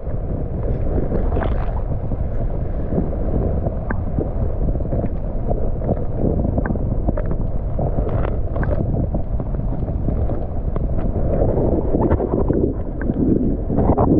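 Muffled, steady rumble of water heard through an underwater camera's housing below the ice, with faint scattered ticks and little above a low muffle.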